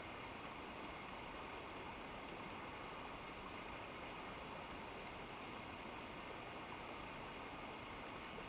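Steady rushing of flowing mountain river water, an even unbroken hiss.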